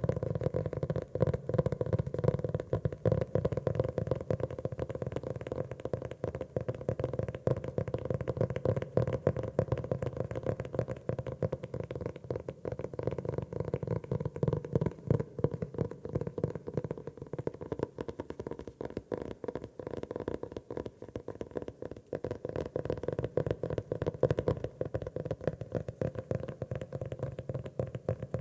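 Fingers tapping quickly and continuously on a notebook: many soft, low-pitched taps a second, without pause.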